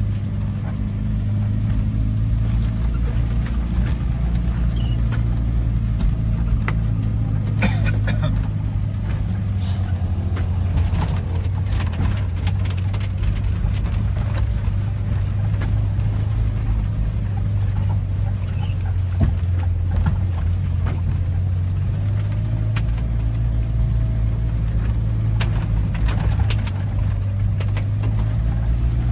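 Car engine running as the car drives slowly, heard from inside the cabin as a steady low hum. Scattered clicks and knocks come through, a cluster of them around eight seconds in and again around eleven to thirteen seconds.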